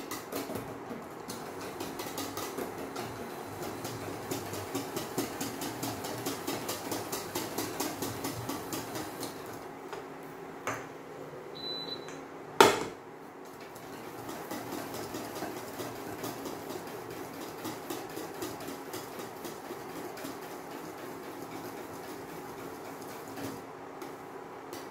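Wire whisk beating a milk and egg-custard mixture in a metal bowl, a rapid steady rhythm of clinking and swishing. About halfway through there is a short high beep, then a single loud metallic clank, the loudest sound here.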